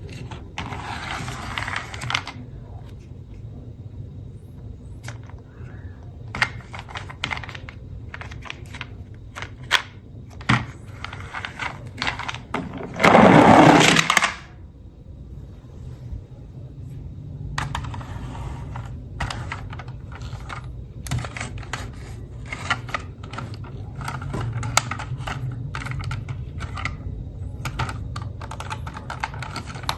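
Small plastic toy cars clicking and clattering in quick, irregular taps, with a loud rushing noise of about a second and a half near the middle.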